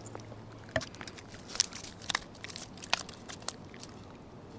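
Keepnet holding a catch of small bream being lifted out and handled: rustling mesh with half a dozen sharp clicks and taps spread over a few seconds.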